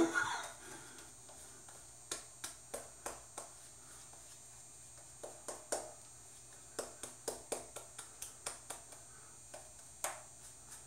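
Short scratchy strokes of a RazoRock Teck II safety razor cutting through lathered stubble, in quick runs of several passes with pauses between them. A single sharp knock comes at the very start.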